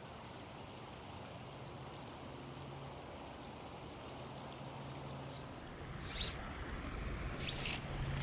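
Shallow creek water running steadily over gravel. About six seconds in the sound grows louder and a few brief swishes are heard.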